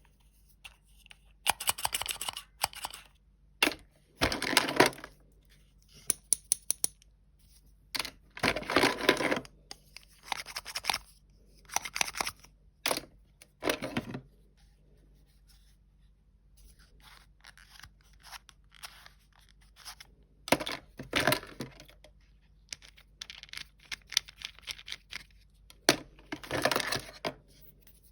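Toy packaging and plastic toy pieces being handled during an unboxing: irregular bursts of tearing and scratching, with sharp clicks and clacks of small hard pieces, separated by short pauses and a quieter stretch midway.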